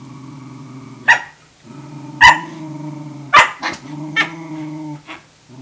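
Dog growling low and steady over a food bowl, broken by four sharp barks about a second apart: a Tamaskan puppy's dominance challenge to an older dog eating.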